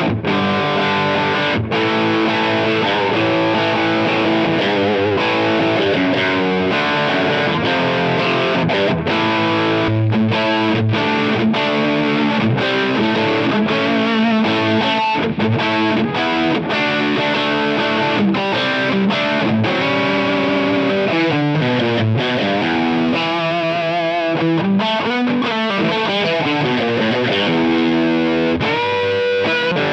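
Electric guitar played through a Demon FX Overdrive DF8, a TS808DX-style overdrive, with a heavily overdriven, high-gain tone. It plays riffs, chords and single-note lines, with string bends and vibrato in the second half.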